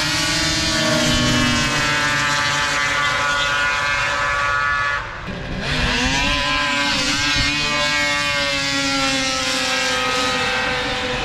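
Racing snowmobile engines running hard, a loud multi-toned engine whine. It dips briefly about five seconds in, then comes back with its pitch bending up and down as the sleds run.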